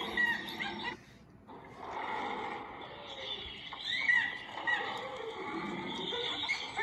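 Halloween sound-effects recording of a horror zoo: layered wild-animal calls and repeated bird-like chirps. It drops out briefly about a second in, and a low, falling animal call comes near the end.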